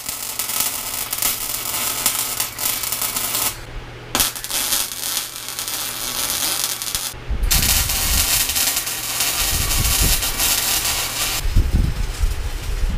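MIG welder arc on steel, crackling and sizzling in runs of bead. It stops for a moment about three and a half seconds in and again briefly near seven seconds. A steady low hum lies under the first half, and a low rumble joins the crackle for the second half.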